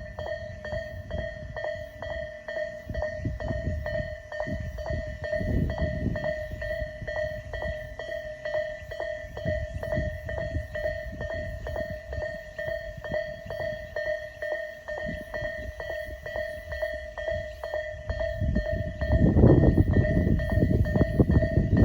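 Railway level crossing's electronic warning bell ringing in a rapid, evenly repeating ding-ding, the Isesaki-type crossing tone. About nineteen seconds in, a train's rumble swells and grows loud as it reaches the crossing.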